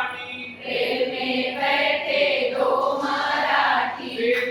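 Voices singing a Hindi action song in unison, the sung line held in long bending notes.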